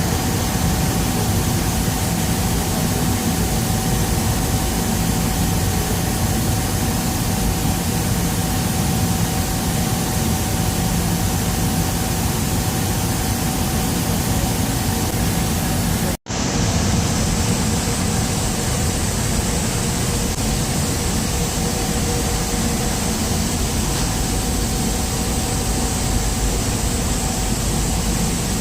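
Welding arc running with a steady hiss and a constant whine, broken once by a sudden cut about halfway through.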